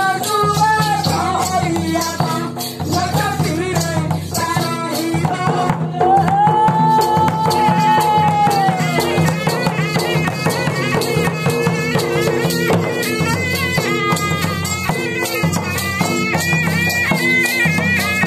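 Live folk dance music: a barrel drum and other percussion beating under a melody of wavering held notes, with one note held for about three seconds near the middle.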